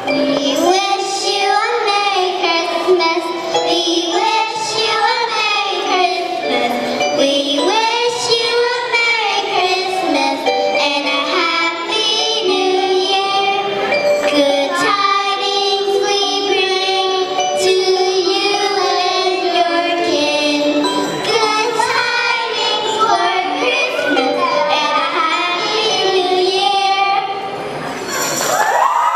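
A group of children singing a song together over musical accompaniment.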